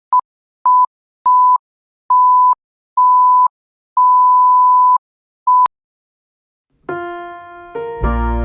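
A series of seven electronic beeps at one steady pitch, mostly growing longer, ending in a sharp click. About a second later, electric piano music begins, with a bass entering near the end.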